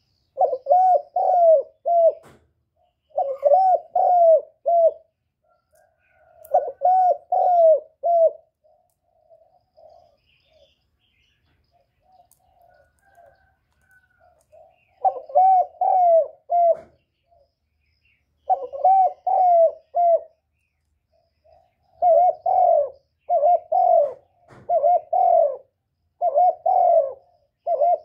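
Spotted dove cooing in repeated phrases of three or four coos, with softer cooing in the middle and a faster run of coos near the end.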